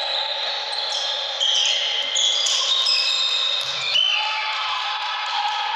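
Indoor volleyball game in an echoing sports hall: players' voices and calls, the ball thudding and bouncing, and short high squeaks of sneakers on the court floor.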